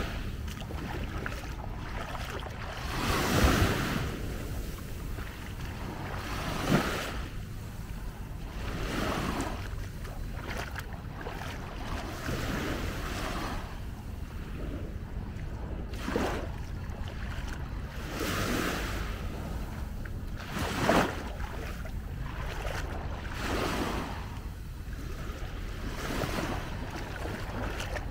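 Small sea waves breaking and washing up the sand, swelling every two to three seconds, over a steady low rumble of wind on the microphone.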